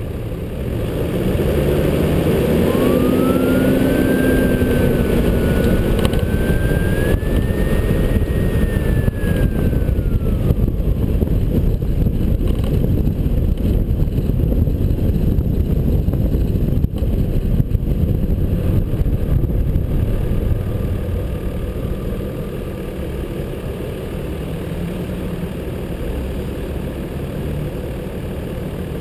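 A 4WD driving on city streets, picked up by a camera mounted on the vehicle: engine, tyre and wind noise. It grows louder about a second in as the vehicle gets going and eases off after about twenty seconds. A faint whine rises and falls in pitch between about three and eleven seconds in.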